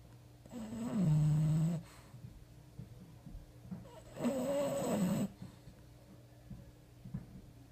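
Sleeping bulldog snoring: two long, rasping snores, each about a second long and some three and a half seconds apart.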